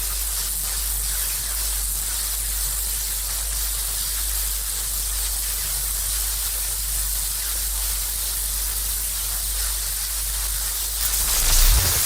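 Fantasy magic energy-beam sound effect: a sustained electric hiss and crackle over a low steady hum, swelling briefly near the end.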